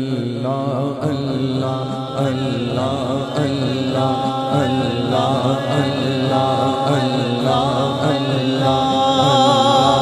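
A man chanting an Urdu Islamic devotional poem (naat/hamd style), unaccompanied by instruments, through a microphone and sound system. The long ornamented lines waver in pitch over a steady low drone.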